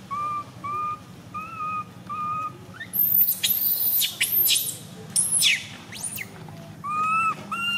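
Baby long-tailed macaque crying in distress: a run of short, wavering cries, then high shrill squeals that glide downward about three seconds in, and the short cries again near the end.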